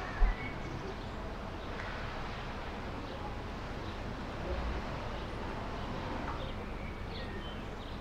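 Steady outdoor background noise with faint bird chirps now and then, a low thump just after the start and a softer one about four and a half seconds in.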